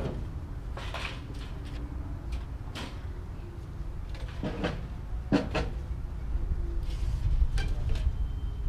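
Scattered metallic knocks and clanks as long scrap metal poles are handled and strapped onto a trailer, about half a dozen sharp hits over several seconds, some followed by a brief faint ring, over a steady low rumble.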